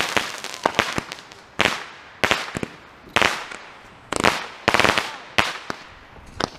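Consumer fireworks going off: an irregular string of sharp bangs, roughly one or two a second, several of them trailing off in a brief crackle.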